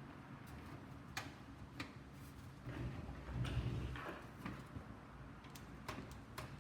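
Scattered light clicks and taps of a screwdriver and screws as a power supply is fastened into a PC case, with a low rumble of handling about three to four seconds in.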